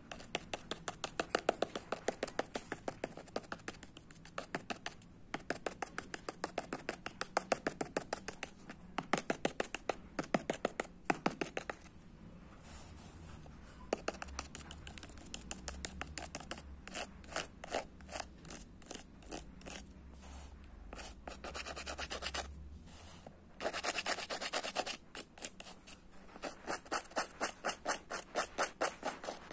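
A painting tool scratching back and forth across canvas in quick, even strokes, about three or four a second, in runs broken by short pauses.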